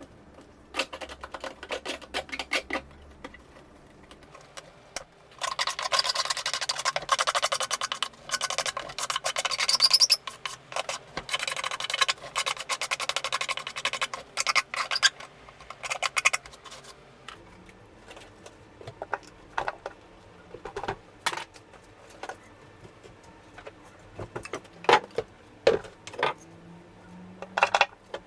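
Hand-tool work on metal washing-machine parts: a long run of rapid scraping strokes, then separate knocks and clinks.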